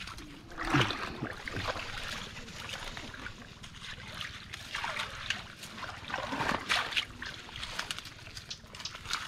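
Wet mangrove mud and shallow water squelching and splashing as a stick and a hand probe a crab hole, in irregular bursts with a louder one about a second in.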